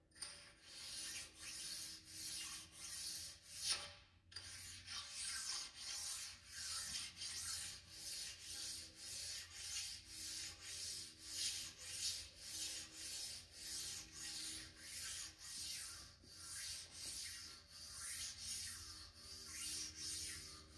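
A sharpening stone rubbed back and forth along the hardened way of a Monarch lathe bed, in even strokes a little under two a second with a short break about four seconds in: stoning down raised burrs on the ways.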